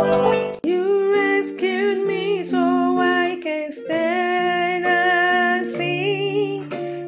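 A woman singing a slow worship song, holding her notes with vibrato in phrases, coming in after a brief break about half a second in.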